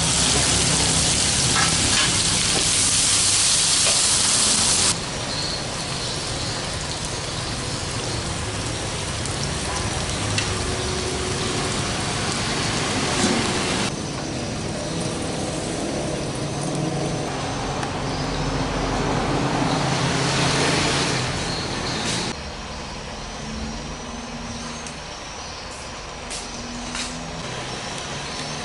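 Green chilies, shallots and garlic sizzling in hot oil in a frying pan, loudest for about the first five seconds as the chilies go in, then a quieter, steady frying hiss.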